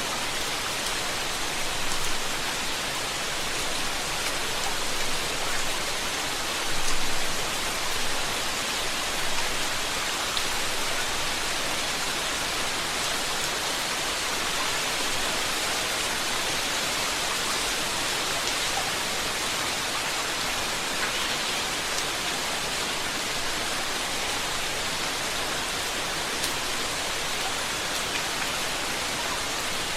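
Steady rain falling in a constant hiss, with faint ticks of individual drops and a few brief swells in the first ten seconds or so.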